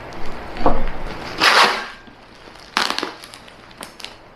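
Plastic parcel wrapping being torn open by hand: packing tape ripping and bubble wrap crinkling, with a loud rip about a second and a half in, a sharp crack near three seconds, then light crackles.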